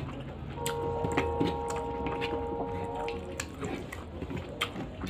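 Close, wet eating sounds of a mouthful of rice and vegetables eaten by hand: chewing, lip smacks and small clicks. A steady humming tone sounds in the background from about half a second in until about three and a half seconds.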